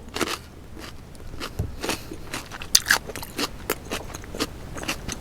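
Close-miked eating of boiled crawfish: chewing with irregular small crunches and clicks.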